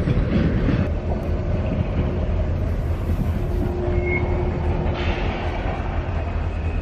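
Train rolling through a rail yard with a steady low rumble, with a couple of brief faint high squeals about four seconds in and near the end.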